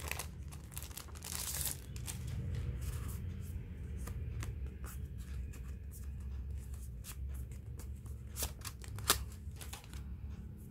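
Clear plastic sleeve crinkling and rustling as a paper notebook is slid out of it and handled, with scattered sharp crackles.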